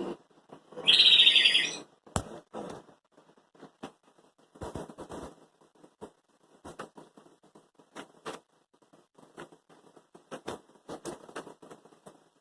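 Squishy foam toys being handled: scattered rustles, taps and squeezes. A brief, loud, high-pitched burst comes about a second in.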